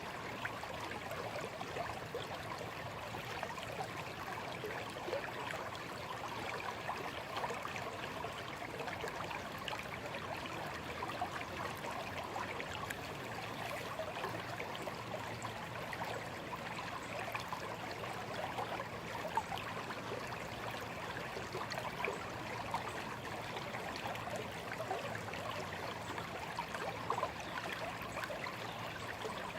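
Small stream babbling and trickling steadily over stones, with fine splashing and gurgling.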